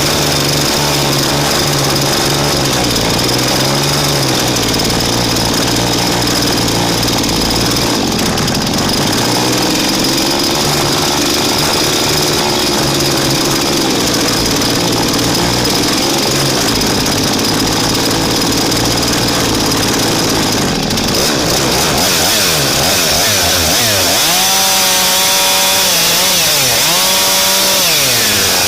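Husqvarna two-stroke chainsaw running loud and close, its engine note sagging and recovering as it works under load. Near the end it revs up and down several times in quick succession.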